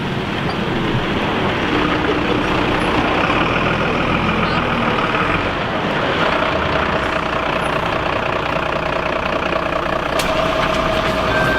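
A heavy truck's engine idling steadily, with a faint steady tone joining about six seconds in.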